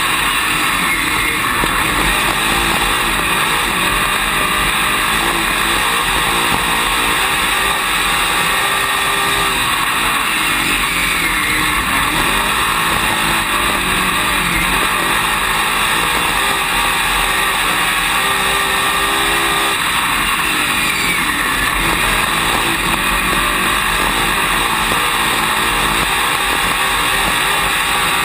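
Dirt late model race car's V8 engine running hard at racing speed, heard from inside the cockpit. Its pitch rises and falls again and again around the laps, over a steady hiss.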